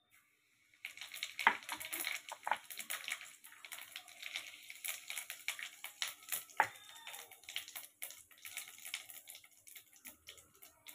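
Cumin seeds sizzling and crackling in hot oil for a tempering, a dense run of small pops that starts about a second in.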